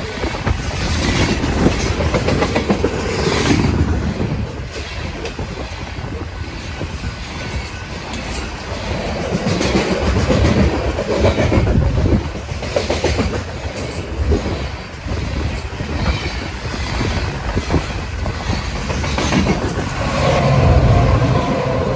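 Freight train of open-top hopper cars rolling past, the steel wheels clacking and clicking over the rails. About twenty seconds in, a BNSF diesel locomotive at the rear of the train passes with its engine running, adding a steady engine drone.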